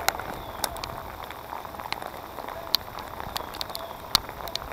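Rain falling on the water and the boat: a steady hiss with scattered sharp ticks of individual drops, a few each second.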